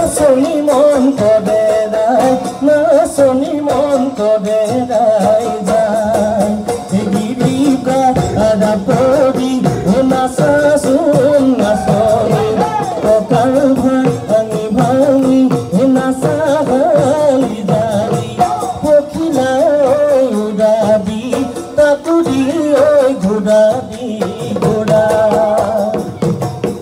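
Assamese Bihu folk music: a singing voice over percussion keeping a steady beat, with no break.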